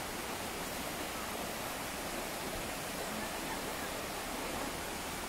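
Steady, even rush of a shallow, rocky river flowing.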